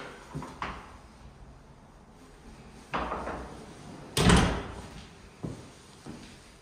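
Wooden closet doors being handled, with a knock about three seconds in and a louder thud a little after four seconds, as a door swings shut or against its stop.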